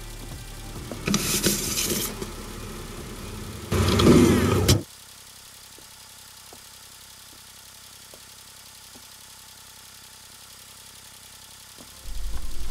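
A car engine sounding in two short loud bursts, each about a second long, the second cutting off suddenly; after that only a faint steady background with a few soft ticks.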